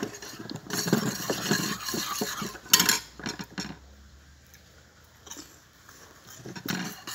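Close-up chewing and crunching of crisp tambis (water apple), with small clinks of a spoon against a bowl. One sharp clink comes about three seconds in, and the second half is quieter.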